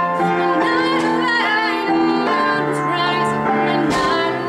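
A woman singing a slow melody over instrumental accompaniment.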